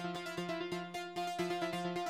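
Background music: a quick, steady run of notes.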